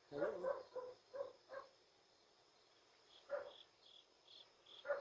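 Cricket chirping in an even rhythm of about three short high chirps a second, starting about three seconds in. It follows a quick run of short, louder pitched calls in the first second and a half.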